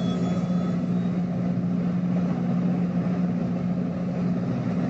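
Railroad diesel engine running steadily, a continuous low hum with rumble.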